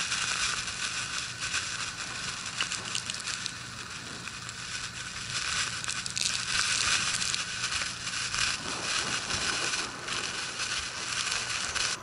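Blizzard wind driving snow, a dense hiss full of crackling, rising and falling in gusts, loudest about six to seven seconds in.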